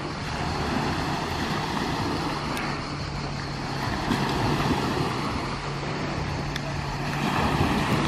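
A motor running steadily with a low hum, under a steady wash of outdoor noise.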